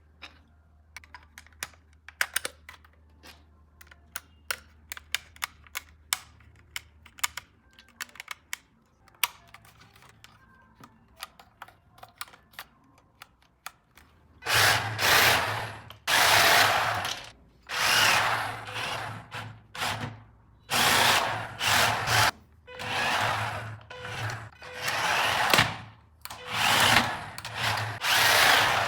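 Scattered light clicks and taps of handling for the first half. Then a remote-control toy car's small electric motor whirs in repeated bursts of about a second each, starting and stopping.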